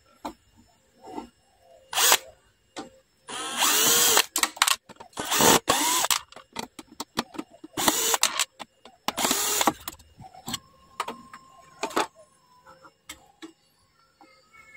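Bosch GSB 120-LI 12 V cordless drill/driver running in four short bursts to back out the screws of an LED board's mounting plate. The motor pitch rises and falls within each burst, with light clicks of handling between them.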